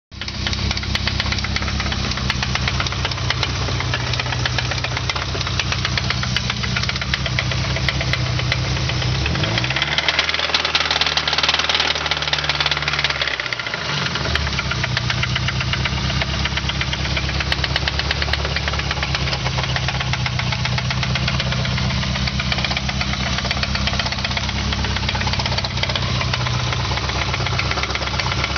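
Nissan KA24E 2.4-litre four-cylinder engine knocking with every turn: rod knock. It idles, is revved up about ten seconds in, and drops back to idle about four seconds later.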